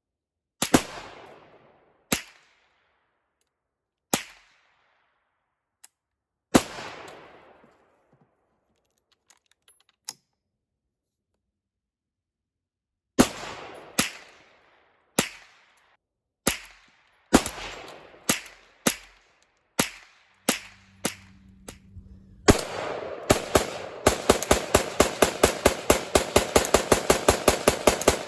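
Gunfire from handguns and rifles. There are single shots a couple of seconds apart, then a pause, then a steadier string about one a second. Near the end comes a rapid run of about five shots a second.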